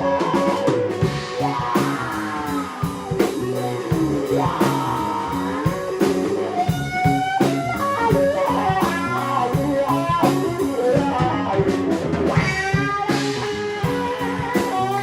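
Live blues-rock trio playing instrumentally: electric guitar lines with gliding string bends over electric bass and a drum kit keeping a steady beat.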